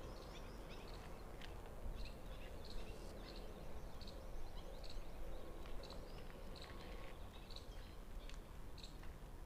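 Birds chirping: many short, scattered high chirps over a faint, low, steady outdoor rumble.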